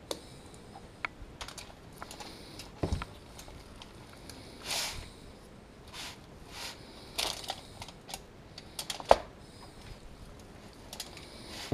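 Scattered light clicks, taps and brief rustles of gloved hands working a plastic squeeze bottle of yellow mustard and spreading the mustard over a rack of pork ribs on aluminium foil. There is a short swish about five seconds in and a sharper tap a little after nine seconds.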